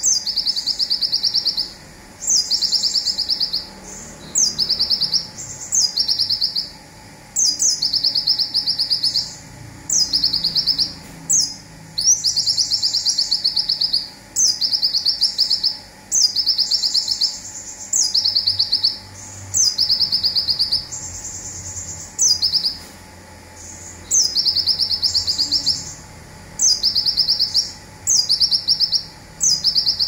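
Olive-backed sunbird (konin) singing its 'zipper' song: the same short phrase repeated about every two seconds, each a high opening note followed by a fast buzzy trill a little lower in pitch.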